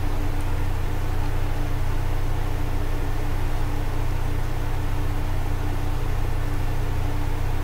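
Steady low hum with an even hiss beneath it, unchanging throughout.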